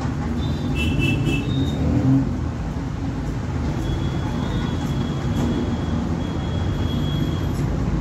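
Steady low rumble of a running vehicle engine or road traffic in the background, with a few faint high-pitched tones over it.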